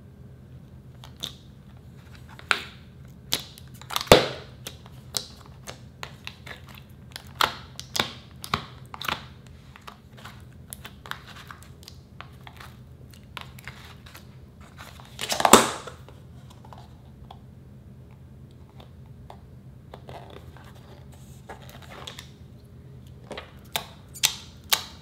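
Clear slime being stretched, squeezed and pressed by hand, making irregular sticky clicks, pops and crackles. The loudest pops come about four seconds in and about fifteen seconds in, with a quick run of clicks near the end as the slime is pressed flat.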